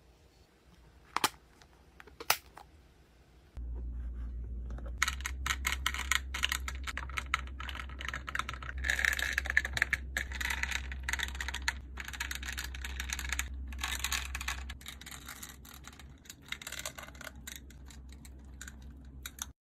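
Small plastic beads clicking and rattling as a hand picks and rummages through them in clear plastic compartment boxes: a dense, irregular run of tiny clicks, busiest in the middle. Two sharp, separate clicks come about one and two seconds in, before the rattling starts.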